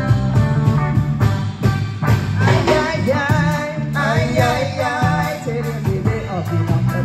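Live band playing: electric guitar, electric bass and drum kit keep a steady groove, and a woman's singing comes in about two and a half seconds in.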